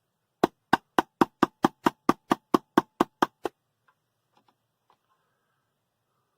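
A quick run of fourteen sharp knocks, about four a second, then a few faint clicks.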